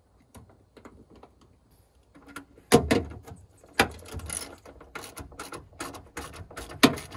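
Socket wrench ratcheting and metal parts clicking as the 10 mm nuts of a new door check are done up inside a truck door: a run of sharp, irregular clicks and knocks, faint at first and louder from about three seconds in, with a loud knock near the end.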